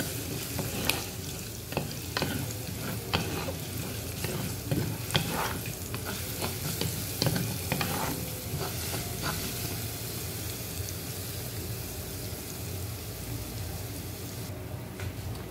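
Crushed and chopped garlic sizzling in oil in a natural stone pot, stirred with a wooden spoon that scrapes and knocks against the stone. The knocks come often in the first half, then thin out.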